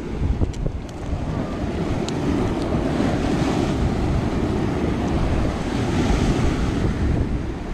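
Ocean surf washing over a rock reef, swelling through the middle, with wind rumbling on the microphone.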